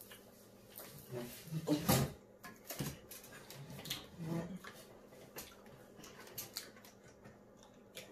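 Plastic water bottles being opened and handled: caps twisting off with small clicks and the plastic crinkling, loudest about two seconds in. A couple of short low voice-like sounds come in near the start and about halfway.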